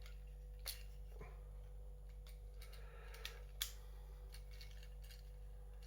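Faint clicks of a small plastic Transformers action figure's joints and parts being moved by hand as it is transformed: a few separate sharp clicks, the loudest about three and a half seconds in.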